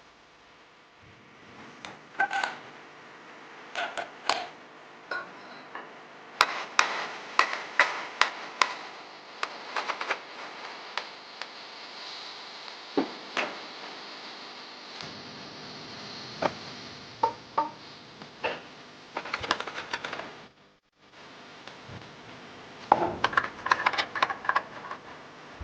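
Small metal parts and tools being handled, in a series of sharp irregular clicks and clinks, some ringing briefly.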